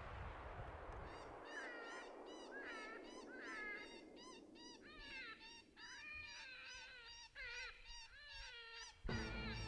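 A group of coyotes yipping and howling: many short, rising-and-falling yips overlapping, with a few drawn-out falling howls. Music cuts in near the end.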